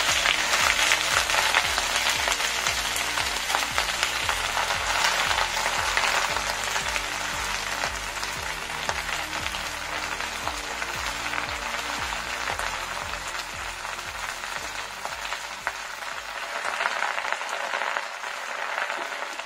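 Freshly washed kharkol leaves sizzling in hot oil in a frying pan as they are dropped in and pressed down. The sizzle is loudest at the start and eases off gradually.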